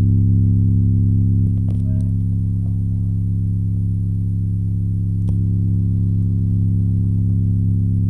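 Car-audio subwoofer fitted with a homemade voice coil, played flat out with the clip limiter off: a steady, deep, unbroken bass tone with strong overtones. It is being driven hard to heat the voice coil.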